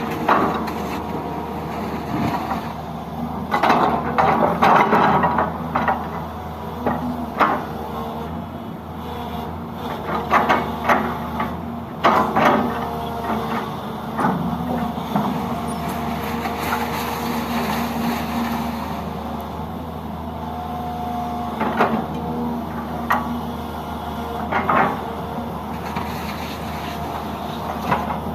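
Heavy diesel construction machinery running steadily, with many sudden metallic clanks and knocks on top. The knocks are densest around four to five seconds in and again around ten to twelve seconds.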